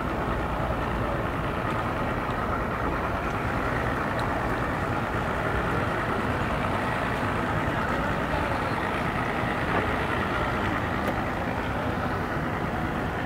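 Outboard boat motors idling, a steady low engine hum with wash and background noise over it.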